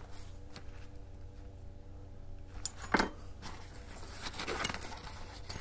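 A small CO2 tyre inflator and a loose metal CO2 cartridge being handled and put away into a fabric tool roll, with one sharp click about three seconds in and a few light clinks near the end, over a steady low hum.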